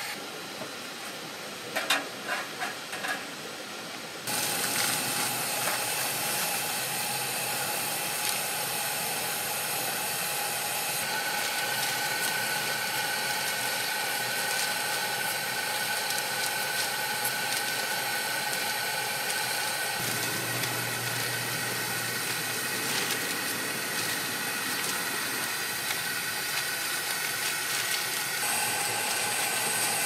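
Gas burner flame hissing steadily. A few sharp clicks come about two seconds in, and the hiss gets louder from about four seconds.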